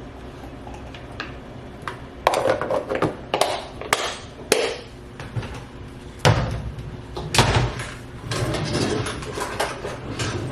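Irregular knocks and clinks of hard objects being handled and set down, starting about two seconds in.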